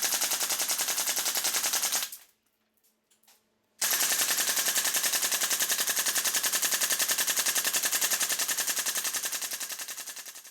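HPA-powered airsoft AR15 pistol firing long full-auto strings: a fast, even rattle of shots that stops about two seconds in, pauses with a few faint clicks, then resumes at about four seconds and trails off near the end.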